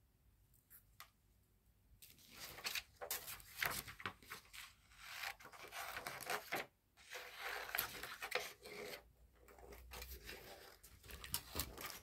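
Wool yarn rubbing and rustling against a small stuffed fabric doll head and the fingers as it is pulled and wound around the head. It starts about two seconds in as irregular scratchy rubbing with sharp little clicks, and pauses briefly about halfway through.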